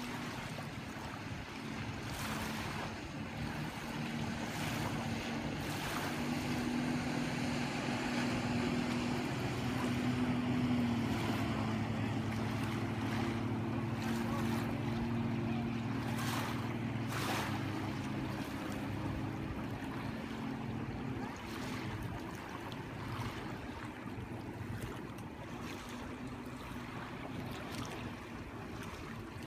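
A jet ski's engine droning out on the water as it tows a wakeboarder, loudest around ten seconds in and then fading. Small waves lap at the shore, with wind buffeting the microphone now and then.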